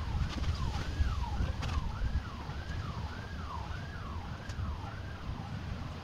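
An emergency vehicle siren wailing up and down, about two cycles a second, over low wind rumble on the microphone.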